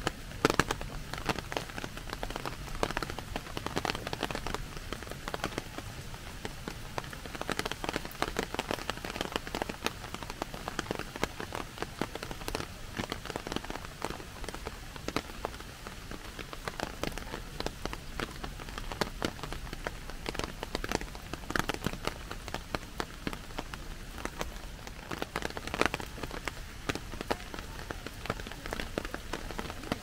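Heavy rain falling on a clear plastic umbrella close overhead: a dense, uneven patter of sharp drops, some louder than others, over a steady hiss of rain in the surrounding trees.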